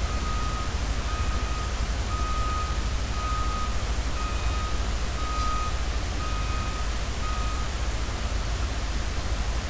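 Telehandler's reversing alarm beeping at a steady pitch about once a second, each beep about half a second long, stopping a couple of seconds before the end, over a steady low rumble.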